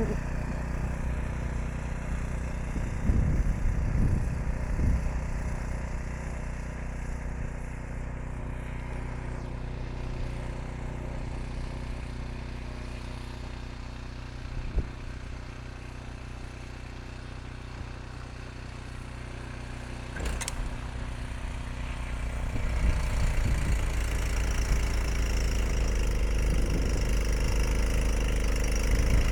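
Ariens Deluxe 30 snow blower's engine running steadily while clearing snow, growing louder about two-thirds of the way through.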